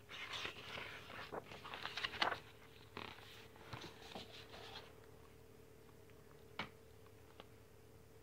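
Paper rustling with small knocks as a page of a large picture book is turned and the book is handled, dying down after about five seconds, followed by one faint click.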